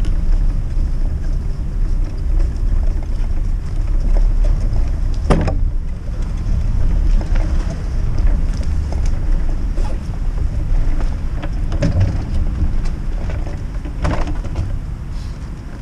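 Steady low rumble of a cargo bike rolling over snowy pavement, wind on the microphone mixed with tyre noise, broken by a few sharp knocks and rattles from the bike. The rumble dies down near the end as the bike slows to a stop.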